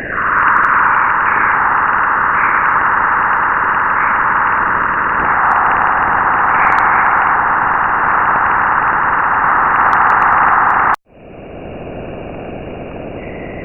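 Sonified plasma-wave data recorded by NASA's Juno spacecraft as it crossed the bow shock of Jupiter's magnetosphere: a loud, steady hiss. It cuts off suddenly about eleven seconds in, comes back more quietly, and swells again at the very end.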